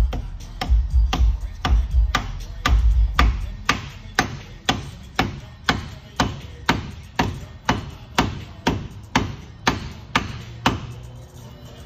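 A hammer strikes the knock-off spinner of a chrome wire wheel in steady blows, about two a second, which stop shortly before the end. The hammering tightens the knock-off to lock the wheel onto its hub.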